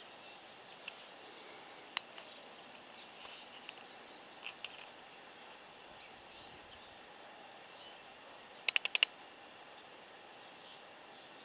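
Outdoor ambience: a steady faint hiss with scattered short high chirps in the first half, then a quick run of about five sharp high clicks near the end, the loudest sound.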